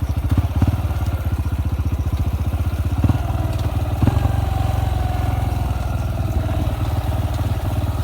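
Yamaha XTZ 125's single-cylinder four-stroke engine running at a steady speed, with a few short knocks.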